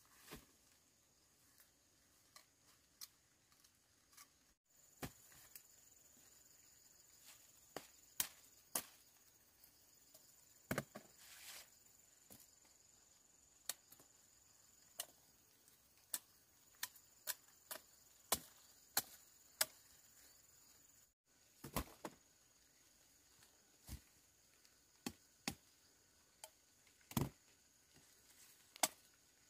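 Scattered sharp taps and knocks at irregular spacing, about one or two a second, over a faint steady high-pitched tone.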